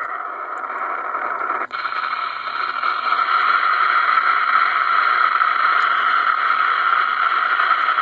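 Static hiss from the receiver of a 2970 ten-meter transceiver tuned to an empty stretch of band, heard through its speaker. A short click and dip about two seconds in, after which the hiss is a little louder.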